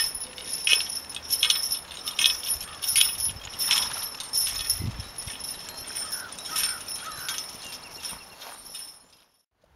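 Belgian draft horse trotting in harness, pulling a two-wheeled cart: the harness metal jingles in an even rhythm with its stride, about once every three quarters of a second. The sound cuts off near the end.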